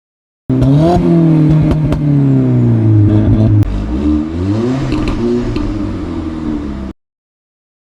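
Car engine revving and coming off the throttle, with sharp exhaust pops and crackles on the overrun from a tuned burble map in its Bosch MED17 engine ECU. The engine note falls, then rises again about halfway through, and the sound cuts off suddenly.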